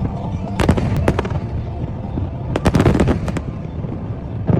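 New Year fireworks bursting: sharp bangs about half a second and a second in, a quick cluster of bangs around three seconds, and another near the end, over a steady low rumble.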